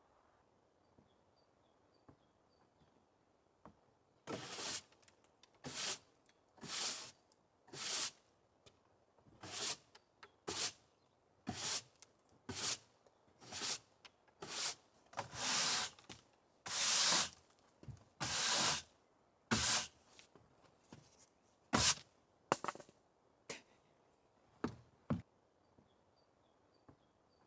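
A series of short scraping or brushing strokes, roughly one a second, with a few sharper knocks among them. It starts about four seconds in and stops a couple of seconds before the end.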